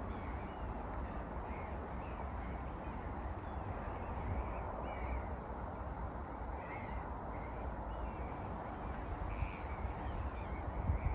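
Birds calling now and then, short calls every second or two, over a steady low wind rumble on the microphone.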